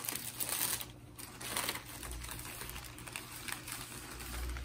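Thin plastic bag crinkling and rustling in quick, irregular crackles as it is worked off a potted plant.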